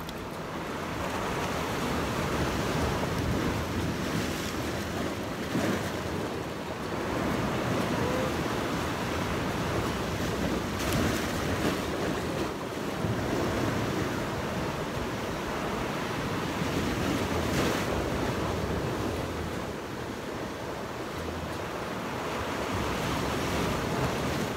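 Sea surf washing and breaking against the shore in slow surges, with wind buffeting the microphone.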